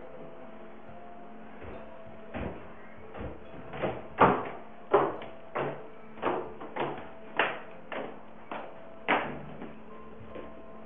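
Footsteps coming down a staircase: about a dozen hard steps, roughly one and a half a second, over a faint steady hum.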